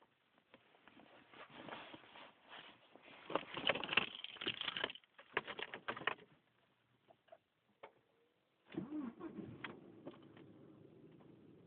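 Irregular rustling and clicking, loudest around the middle of the first half. About three quarters in, a 2002 Audi A4's 1.8-litre turbocharged four-cylinder starts with a brief falling whine and settles into a steady idle, the startup on which the owner hears an intermittent strange noise from the rear of the car.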